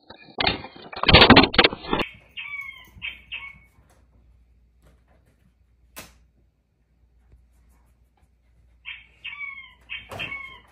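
Loud bumping and snuffling of a dog's muzzle pushing against a Furbo treat camera's microphone. Then a dog whining in short, falling high-pitched cries, three in a row, and near the end another run of four.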